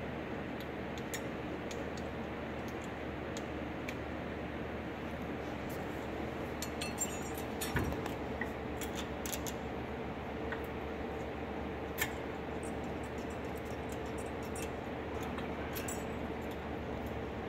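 Scattered metallic clicks and clinks of new front brake pads and their metal clips being handled and seated in the caliper bracket of a 2015 Subaru Legacy, with a sharper knock about eight seconds in and another click about twelve seconds in, over a steady hum.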